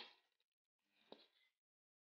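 Near silence, with a faint short clatter and click about a second in as cooked food is tipped from a pan into an aluminium pot.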